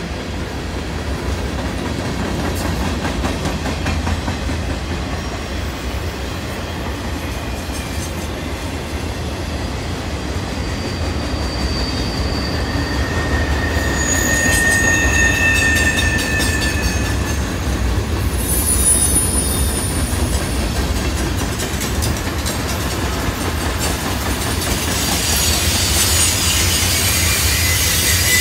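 Loaded CSX freight cars rolling past on a curve, with a steady rumble and wheel clatter. About halfway through, the wheels squeal in thin high tones, as flanges do against the rail on a curve. Near the end the noise grows louder as a mid-train distributed-power diesel locomotive approaches.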